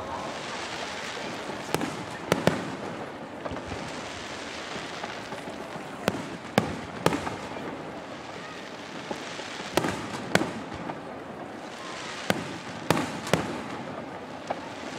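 Aerial firework shells bursting: sharp bangs in small clusters every few seconds, over a steady background of crowd voices.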